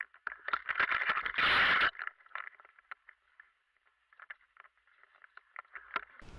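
Crackling and rustling of dry leaves and twigs underfoot and against clothing as someone moves through forest undergrowth. There is a denser, louder brushing noise for about half a second near the second mark, then scattered faint snaps.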